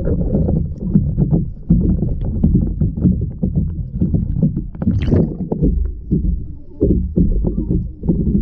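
Muffled pool water sloshing and churning, heard underwater, with many dull knocks from bodies and hands moving through the water. A brief sharper hiss about five seconds in.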